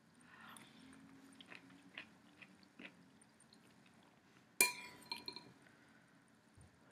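Metal spoon in a bowl of chicken soup: soft eating and spoon sounds at first, then one sharp ringing clink of spoon on bowl about two-thirds of the way through, followed by a couple of lighter clinks.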